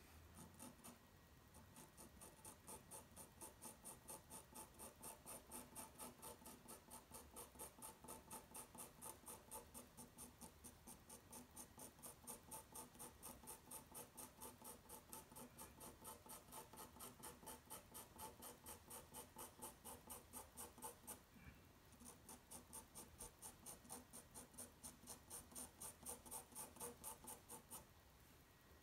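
Pastel pencil rubbing on toned paper in quick back-and-forth shading strokes, about three or four a second, faint. It pauses briefly about two-thirds of the way through, then resumes.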